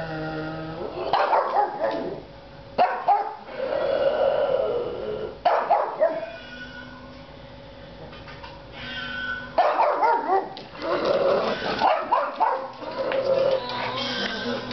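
Pug barking and yipping in repeated loud bursts, a reaction to the cat meows in a rock song playing underneath.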